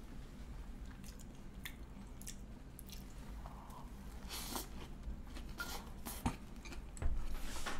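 A person eating a Big Mac roll with lettuce: soft, wet chewing and mouth sounds with small clicks, and a few louder bites and squishes from about four seconds in.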